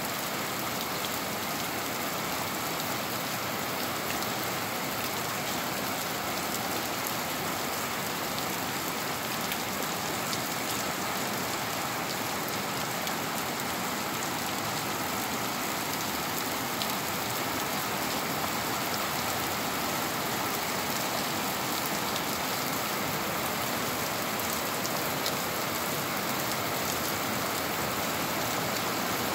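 Steady rain falling on a wet concrete street, an even hiss of drops that does not let up.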